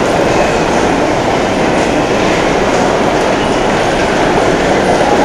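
Steady, loud din with no separate events, like heavy rail or city traffic noise, with no speech or music standing out.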